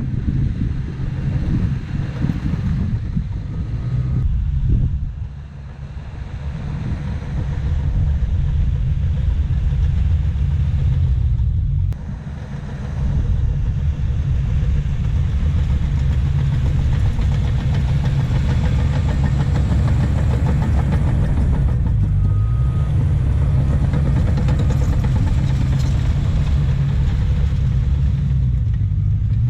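Cat D5K crawler dozer's diesel engine running steadily, with two brief dips in level about five and twelve seconds in, while it pushes and spreads topsoil.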